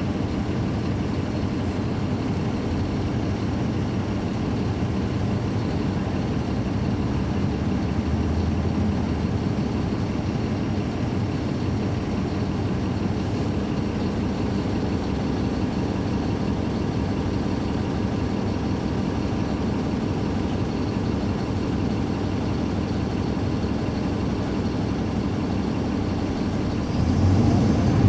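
Caterpillar C13 ACERT diesel engine of a 2009 NABI 416.15 transit bus running steadily with its engine cooling fans on, then getting louder near the end.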